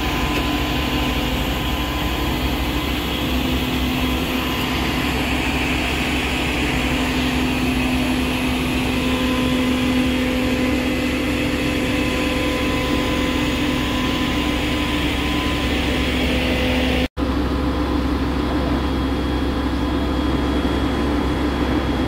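Fire engine's diesel engine running steadily, a constant hum with a low rumble beneath it. The sound cuts out for an instant about three-quarters of the way through, then carries on unchanged.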